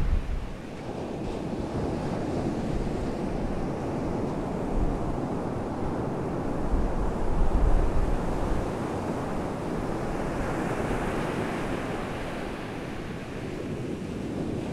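Muffled rushing of sea water heard underwater through a GoPro's waterproof housing, a steady noisy wash. Low rumbling surges come in right at the start and again about seven to eight seconds in.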